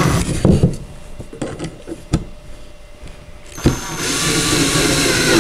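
Cordless drill driving a long screw through a wooden bed end panel into the side rail: a few light clicks and knocks, then, about three and a half seconds in, the drill motor runs steadily with a high whine until the end.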